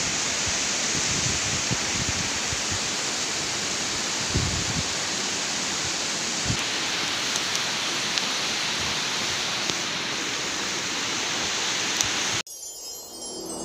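Rushing stream water running over rocks in small rapids, a steady hiss with a few low thumps. It cuts off abruptly near the end.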